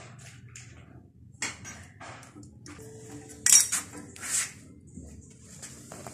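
Metal hand tools clinking and clattering as they are handled, with a few sharp knocks; the loudest comes about halfway through.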